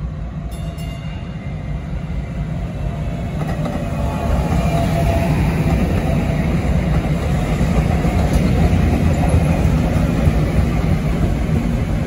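DART light-rail train passing close by: the rolling rumble of its wheels on the rails grows louder over the first four seconds, then holds steady as the cars go past.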